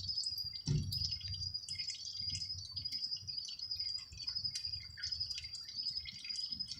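Night insects chirping steadily in a high, continuous trill, with soft irregular drips of motor oil running from the loosened oil filter into the drain pan.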